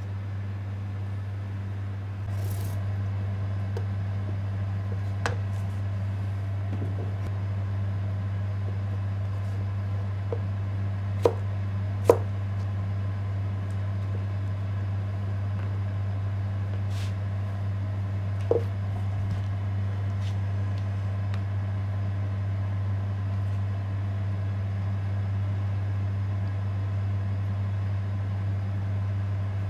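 A steady low hum, with a few sharp taps of a knife blade on a wooden cutting board as vegetables are cut. The loudest are two taps close together about eleven and twelve seconds in.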